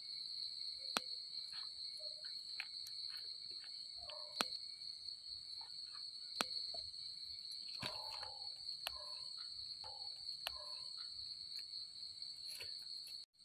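A steady, high-pitched chorus of night insects, with scattered sharp snaps and soft rustling of leaves and stems as termite mushrooms are pulled up by hand.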